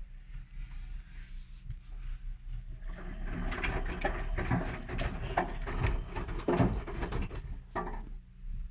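Whirlpool washing machine in its main wash: a steady low hum, then from about three seconds in a stretch of sloshing and knocking as the drum turns the wet load, dying away about eight seconds in.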